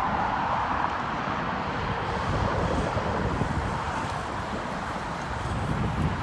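Wind rushing over the microphone with a gusty low rumble while riding, and street traffic in the background; a passing car's noise fades in the first second or so.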